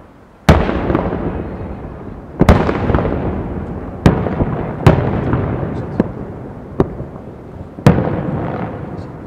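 Aerial firework shells bursting: about seven sharp bangs a second or two apart, each trailing off in a long rumbling echo. The first comes about half a second in, and the loudest are at the start and near the end.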